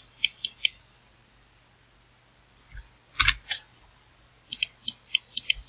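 Computer mouse and keyboard clicks in short runs: a few quick clicks at the start, two or three a little past three seconds, and a faster run of about seven near the end.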